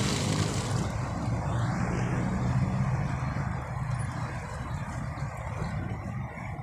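A boat engine running at a steady low hum, with the water churning at the barge's stern; it slowly grows fainter.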